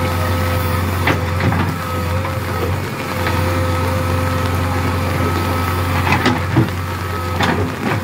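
JCB backhoe loader's diesel engine running steadily under work, with a few sharp knocks about a second in and again near the end.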